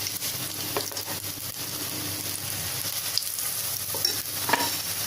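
Besan-battered potato vadas deep-frying in hot oil: a steady sizzle with a few scattered crackles.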